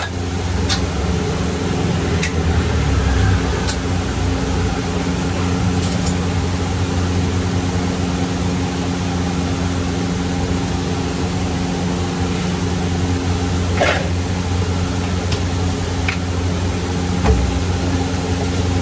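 Steady low mechanical hum under a faint frying hiss from a pan of eggplant and squash on a gas burner, with a few light clicks and taps as seasoning is shaken in and the vegetables are stirred with a wooden spatula.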